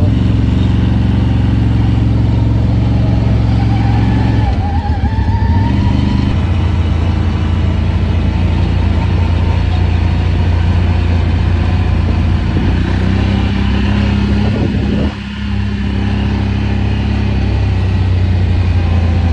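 CFMOTO 1000cc motorcycle engine running at low, fairly steady revs while riding over rough dirt, with a steady rushing noise of wind and tyres. The engine sound drops off briefly about fifteen seconds in, then picks up again.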